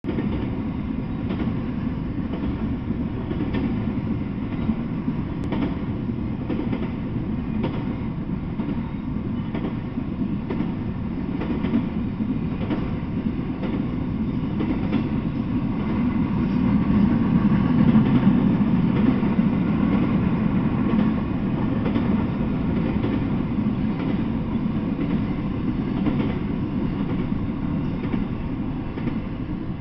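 Intermodal freight train of truck trailers on flatcars rolling past: a steady low rumble of steel wheels on the rails with scattered clicks over the rail joints, swelling a little just past the middle.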